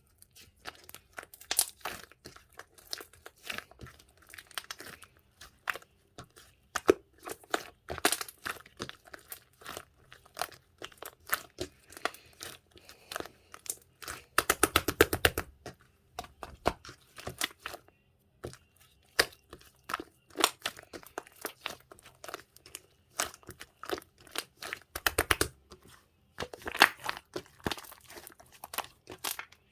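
Yellow slime being squished, pressed and stretched by hand, giving irregular wet clicks and crackling pops, with quick runs of rapid clicking about halfway through and again near the end.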